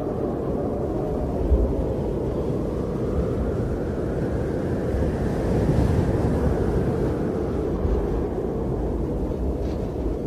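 Blizzard wind blowing and buffeting the microphone with a steady low rumble that swells about six seconds in.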